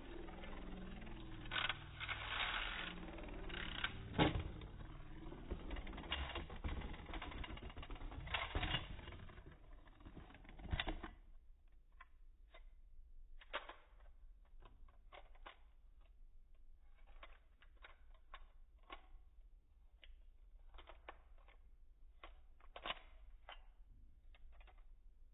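A Beyblade spinning top rattling and scraping on a plastic stadium floor, a dense run of small clicks that stops suddenly about eleven seconds in. After that, only scattered faint clicks follow, like the top or stadium being handled.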